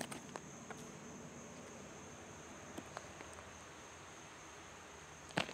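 Faint, steady high-pitched insect drone over low hiss, with a sharp click near the end.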